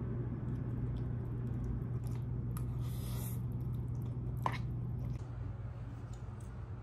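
Noodles being eaten from a paper cup with a fork: quiet slurping and chewing with a few small clicks, over a steady low hum.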